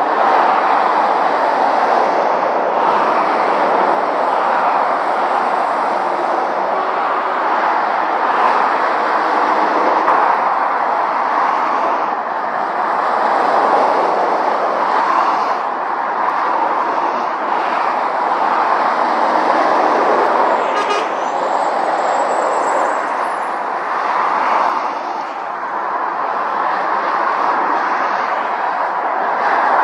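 Steady roar of motorway traffic: lorries and cars passing at speed, mostly tyre noise on the road, swelling and easing as each vehicle goes by.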